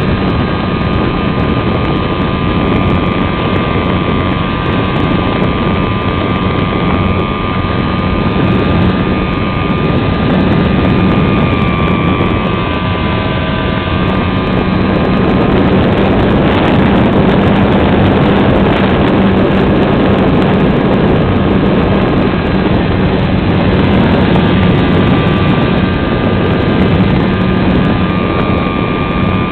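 Wind rushing over an onboard camera on a radio-controlled electric SIG Riser glider in flight, a steady noise with a steady whine under it, growing a little louder about halfway through.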